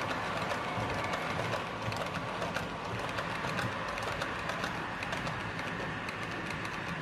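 H0-scale model train, a pair of Roco Vectron locomotives hauling wagons, running on the layout's track: a steady whirr from the motors and rolling wheels, with many small irregular clicks of wheels over rail joints and points.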